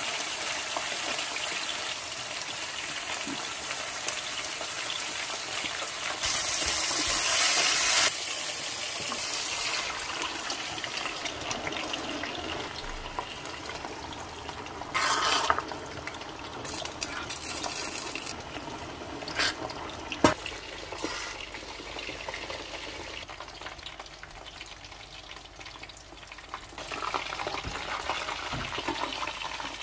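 Blended carrot and bell pepper base frying and sizzling in a non-stick pan as it is stirred with a spatula. About halfway through, liquid is poured into the pan.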